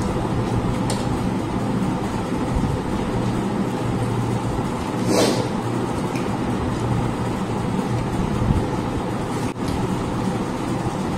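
Steady low hum with a constant hiss, with a brief louder rustle about five seconds in.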